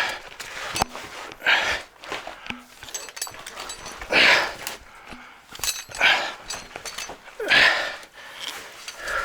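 A person breathing heavily from the exertion of climbing, loud breaths about every one and a half to two seconds, with a few small knocks between them.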